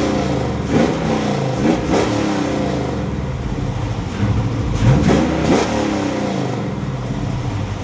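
Corvette Z06 V8 in a 1995 Dodge Dakota pickup, revved hard in repeated throttle blips. The pitch sweeps up sharply several times between stretches of high revs.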